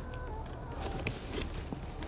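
An F1 carp being brought in and handled in a landing net, with a few short splashes and knocks, over a steady wind rumble on the microphone.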